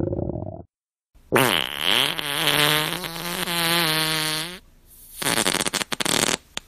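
Fart sound effect: one long drawn-out fart whose pitch wavers and falls before holding low, followed by a shorter crackling, sputtering burst.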